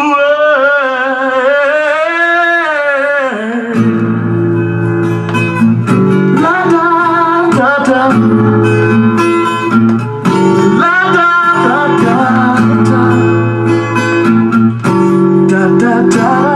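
A song playing from a vinyl LP on a BSR Quanta 450SX record changer: a singing voice with wavering pitch, then backing instruments with a steady low line come in about four seconds in.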